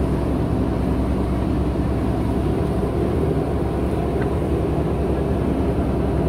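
JCB 3DX backhoe loader's diesel engine running steadily while the backhoe arm digs.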